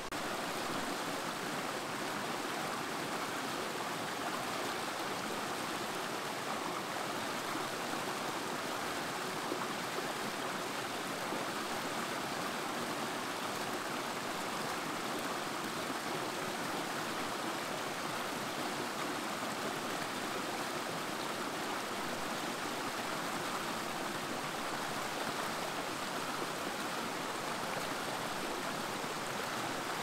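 Shallow mountain stream cascading over rocks: a steady, even rush of splashing water.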